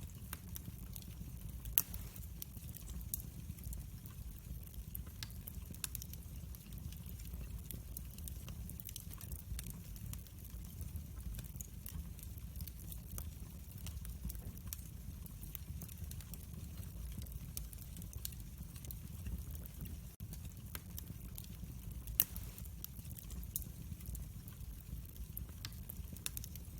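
Wood fire crackling in a fireplace: scattered small snaps and pops over a low steady rumble of flame, with one sharper pop about two seconds in and another later on.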